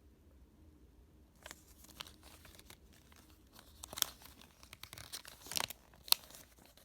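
Paper leaflets from a pistol box rustling and crinkling as they are handled. The rustling starts about a second and a half in, with a few sharp, louder crackles toward the middle and end.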